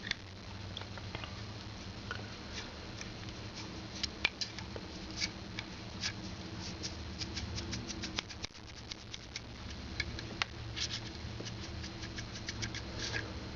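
Light, irregular scratching and small clicks of petrol-dampened cotton wool being worked around the metal chimney and case of a Zippo lighter during cleaning, over a faint steady hum.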